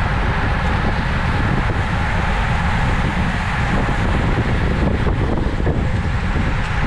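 Steady wind rushing over a cyclist's camera microphone while riding at race speed.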